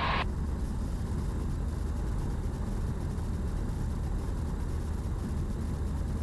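Steady drone of a Cessna 172M's four-cylinder piston engine and propeller in cruise flight, heard from inside the cabin.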